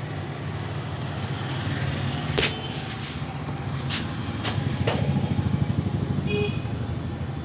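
A barber's hands working over a head massage: four sharp smacks spread a second or so apart, then a run of rapid rhythmic tapping, over a steady low rumble of street traffic.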